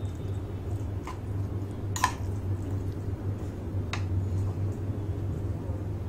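Plastic spatula stirring grated bottle gourd into curd in a plastic bowl: soft squishing with a few light clicks, about 1, 2 and 4 seconds in, over a steady low hum.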